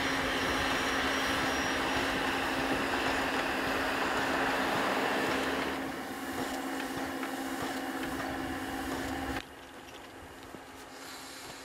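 Class 52 steam locomotive 52 8053 running, a dense steady mix of steam and rail noise with a steady low hum under it. It drops somewhat about six seconds in, then cuts off suddenly about nine seconds in to a much quieter background.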